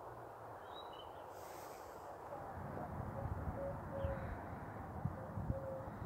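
Outdoor ambience: a steady low rumbling noise with irregular low thumps, and a few short high bird chirps about a second in and again near the fourth second.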